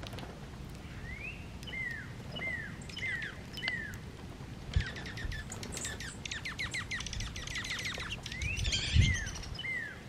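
A songbird singing: short slurred whistled notes repeated about every two-thirds of a second, then a fast rapid run of notes in the middle, then the slurred notes again. A few low thumps come in between, the loudest near the end.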